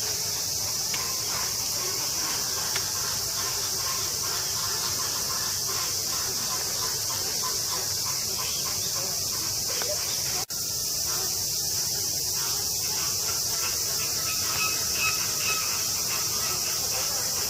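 Steady, high-pitched chorus of summer cicadas, broken for a moment about ten seconds in.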